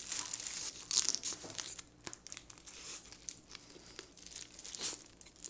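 Steamed blue crab shell being pulled and cracked apart by hands in disposable plastic gloves: an irregular run of crackles and crinkling rustles, loudest about a second in and again just before the end.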